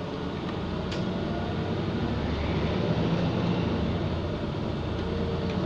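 Iveco Crossway city bus's engine running with road and body rumble, heard from inside the passenger cabin, growing louder over the first few seconds as the bus pulls away from a stop. A short click about a second in.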